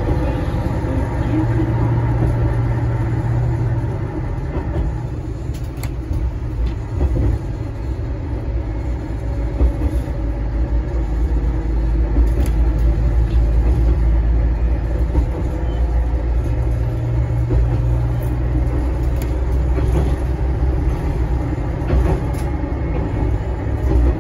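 Tarumi Railway diesel railcar running along the line: a steady low engine drone with running noise from the wheels and track, and occasional short clicks.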